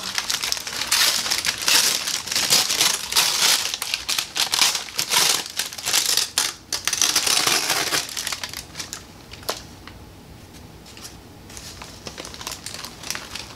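Brown kraft packing paper crinkling and rustling as it is unwrapped from around a plant. The sound is loud and dense for about eight seconds, then softer with scattered crackles.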